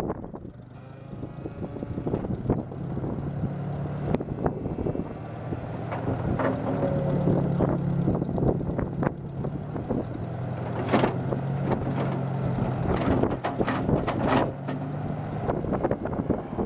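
Ford 2000 tractor's four-cylinder gas engine running steadily while the front loader works. It grows louder over the first several seconds, with scattered knocks and rattles throughout.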